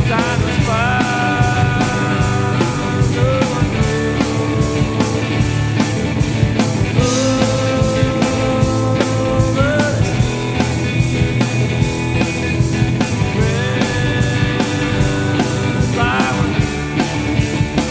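Rock song with drums, bass and guitar, with held notes that slide up between pitches.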